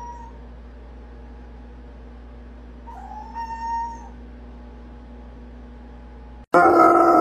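A small Yorkshire terrier puppy whines twice over a steady low hum: a short high whine at the start, then a longer, louder one about three seconds in that rises in pitch. Near the end a basset hound breaks in with a loud howl that slides down in pitch.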